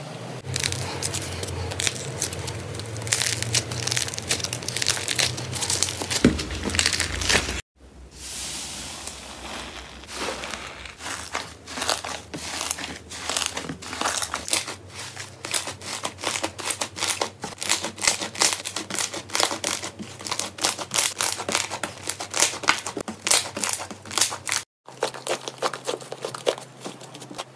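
Hands squeezing and stretching slime, making dense runs of small sticky clicks, pops and crackles. The sound breaks off abruptly twice and starts again.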